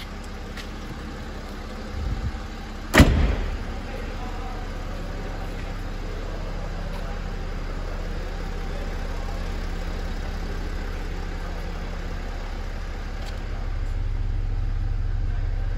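A car's tailgate shut: a soft thump about two seconds in, then a sharp bang about three seconds in that rings briefly. A steady low hum runs underneath.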